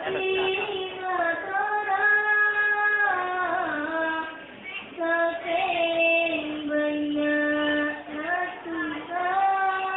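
A young female voice singing a sholawat, an Islamic devotional song, in long held notes joined by ornamental glides.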